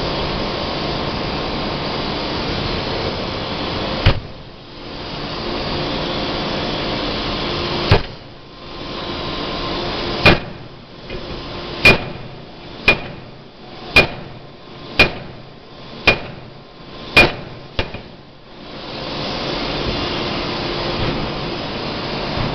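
Air-driven closed-die forging hammer striking a hot workpiece: two single blows a few seconds apart, then a run of seven blows about one a second, each a sharp ringing bang. A steady rushing noise fills the gaps before and after the blows.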